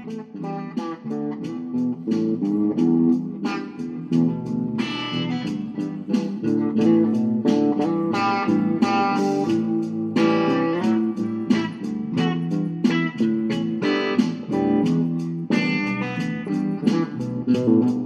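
Background music: guitar picking a melody, notes plucked in quick succession over lower sustained notes.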